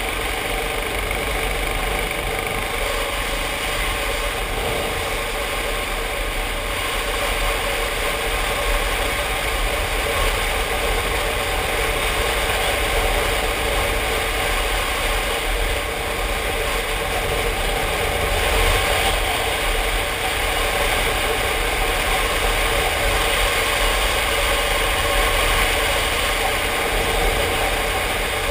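Motorcycle engine running steadily while riding along a road at moderate speed, with wind and road rumble on the helmet-mounted camera's microphone.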